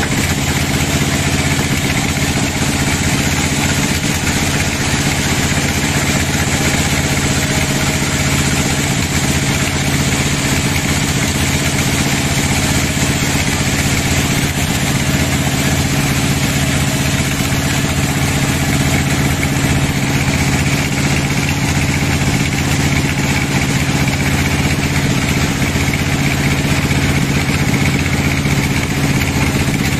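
Band sawmill running steadily with its blade cutting lengthwise through a large hardwood log: a constant engine-like drone under the hiss of the cut.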